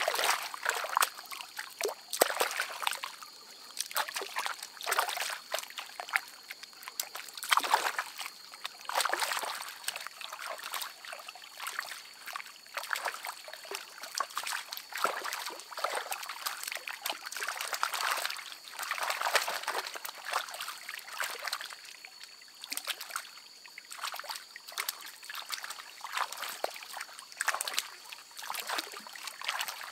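Hands splashing and scrubbing jicama roots in shallow stream water to wash off the mud: irregular splashes and sloshing over trickling water.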